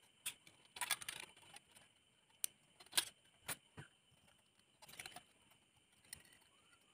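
Scissors snipping a thin strip of sheet metal: quiet, short, sharp snips and metallic crinkles at irregular intervals.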